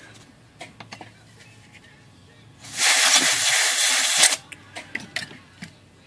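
Aerosol spray can hissing in one burst of about a second and a half into the typewriter's print-hammer solenoid to clean out the gummed-up plunger bore. Small clicks of parts being handled come before and after it.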